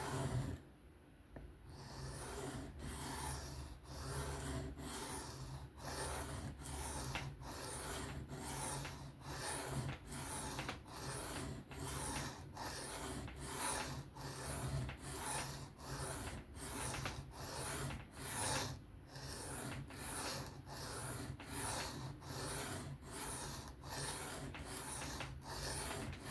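Knife blade being drawn freehand across a 400-grit sharpening stone in regular rasping strokes, a little under two a second, starting about two seconds in.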